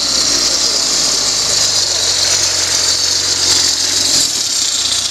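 Engine of a tube-framed off-road challenge truck running steadily as the truck drives across loose sandy ground and pulls up close.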